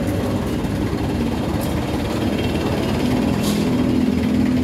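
A motor vehicle engine running steadily with a low hum; a tone in it grows stronger about three seconds in.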